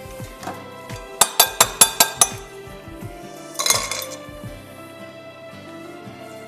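A kitchen utensil clinking against a glass mixing bowl about six times in quick succession, sharp ringing knocks, then a shorter clatter about halfway through, as flour is added to the batter. Soft background music runs underneath.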